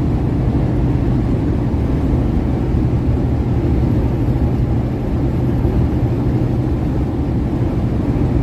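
Steady low rumble of a semi truck's diesel engine, with a constant hum underneath.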